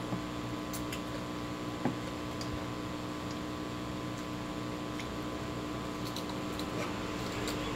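Steady hum with a few faint clicks and taps of hands and a spoon at a metal pot of rice, with one soft knock about two seconds in.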